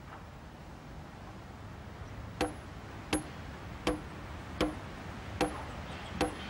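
Steel hammer blows on metal, starting a couple of seconds in and falling evenly about every three-quarters of a second, each strike ringing briefly: track spikes being tapped in on a rail relay.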